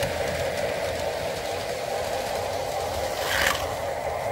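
Toy-scale motors running together: an O gauge Lionel train rolling on three-rail tube track and 1:43 Carrera Go slot cars, making a steady whirring hum. A slot car whooshes past close by about three seconds in.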